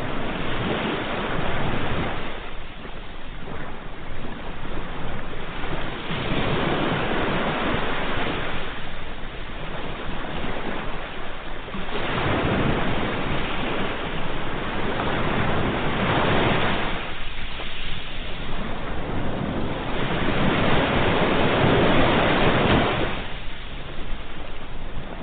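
Sea waves breaking and washing on a shore, each swell rising and falling every few seconds.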